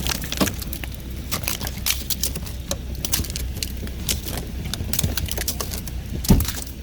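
Freezing rain ticking and crackling, many irregular sharp clicks over a low steady rumble, with one louder thump about six seconds in.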